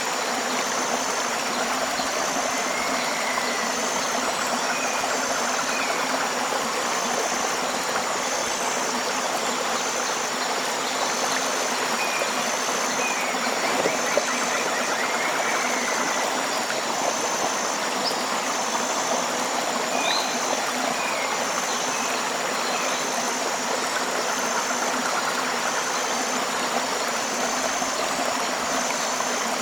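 Tropical river water flowing steadily, with scattered bird chirps and a short high-pitched chirp repeating about once a second over it.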